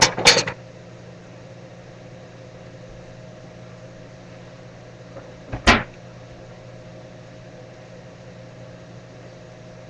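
Steady hum of a running kitchen appliance. A quick cluster of clattering knocks comes right at the start, and one sharp knock about six seconds in.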